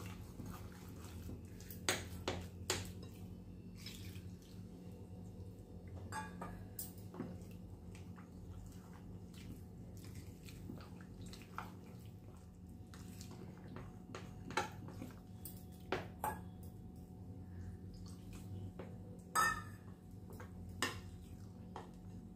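Rice flour, milk and water being mixed into a thin batter in a glass bowl: soft wet stirring with scattered light clicks against the glass, over a faint steady low hum.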